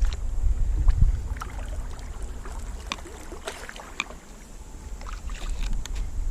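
Canoe being paddled: water splashes and light knocks against the aluminum hull, with scattered short clicks over a low rumble that is strongest in the first second.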